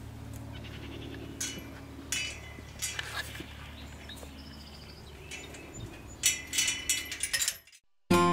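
Steel pipe-panel corral gate clanking and rattling in short bursts as it is handled, a few scattered knocks and then a busier cluster of clanks about six to seven seconds in, over a steady low hum.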